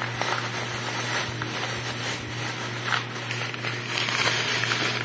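Thin plastic produce bag crinkling and rustling as it is handled, louder near the end, over a steady low hum.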